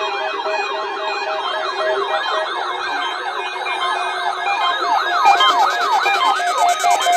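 Several electronic sirens sounding at once, fast up-and-down sweeps overlapping over a steady tone. The sweeps slow somewhat in the last few seconds.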